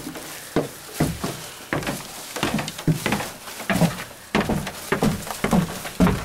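Footsteps at a brisk pace on hard steps, about two thuds a second, mixed with the knocks of a handheld camera being carried.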